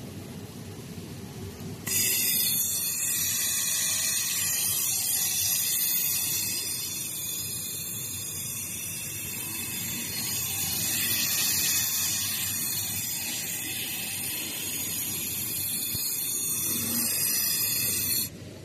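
Automated fiber laser welder running a weld cycle: a loud, steady hiss starts abruptly about two seconds in and cuts off sharply just before the end, over a low machine hum.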